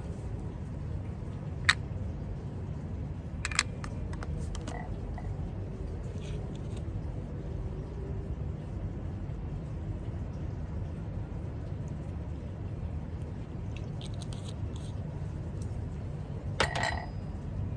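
Steady low room hum with a few small sharp clicks and a brief scrape near the end: the handling noises of someone studying quietly at a desk.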